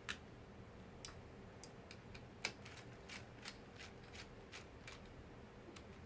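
Faint, irregular small clicks and ticks from a precision screwdriver working the tiny screws around the fan of a 15-inch unibody MacBook Pro, metal on metal. There are about a dozen, with the sharpest about two and a half seconds in.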